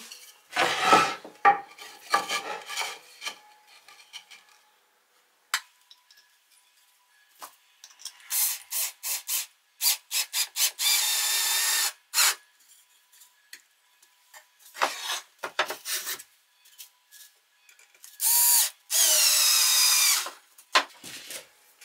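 Cordless drill-driver driving screws into wood: a string of short trigger bursts about eight seconds in, then two longer runs of a second and a half or so, the motor's pitch bending as it takes the load. Knocks and rubbing of wooden parts being handled in the first few seconds.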